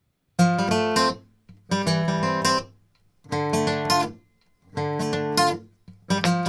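Background music: acoustic guitar strumming chords in short phrases about every second and a half, each fading away before the next.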